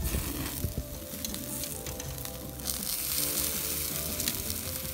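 Chicken cartilage in salted-leek sauce sizzling and crackling on a wire grill net over hot charcoal.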